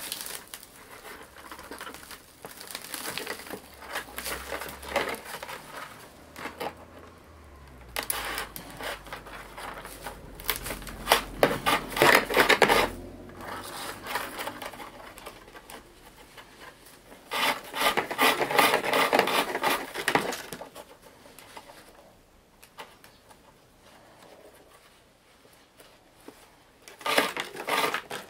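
Split-bamboo strips rustling, scraping and clicking as a thin binding strip is threaded and pulled through the woven rim of a bamboo winnowing basket. The crackling comes in bursts, loudest around the middle and again briefly near the end, with a quieter stretch before that.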